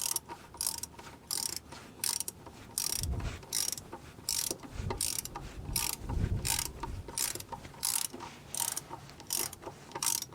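Socket ratchet clicking in short repeated strokes, about two a second, backing out an oil pan drain plug, with a few dull low knocks in the middle.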